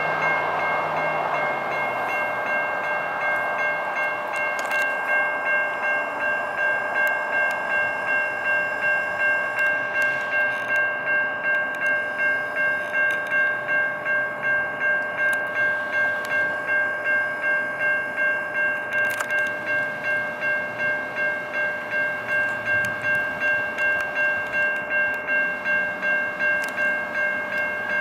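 Railroad crossing electronic bells, including a new Siemens E-Bell, ringing steadily and pulsing about twice a second while the crossing warning is active and the gates lower. A rushing noise fades over the first couple of seconds.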